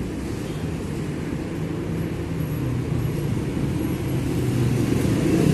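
Street traffic rumble, with a vehicle engine drawing nearer and growing steadily louder from about two seconds in.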